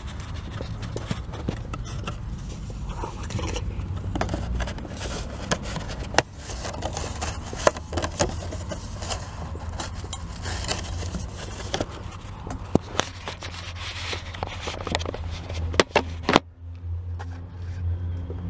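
Scraping, rustling and sharp clicks of a card being pushed through a front door's letterbox flap, handled close to the microphone, over a low steady rumble. The clicks come irregularly, with the sharpest a little past halfway and shortly before the sound drops away near the end.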